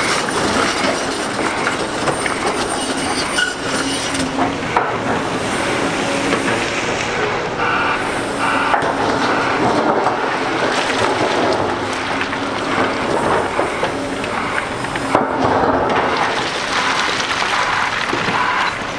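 Volvo EC750E excavator and A60H articulated hauler working: heavy machinery running with a continuous clatter of knocks and scraping, and short squeals now and then.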